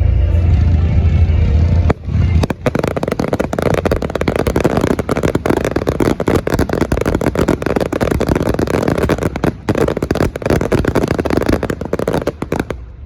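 Show music for about the first two seconds, then a dense fireworks barrage: rapid overlapping bangs and crackles for about ten seconds, cutting off near the end.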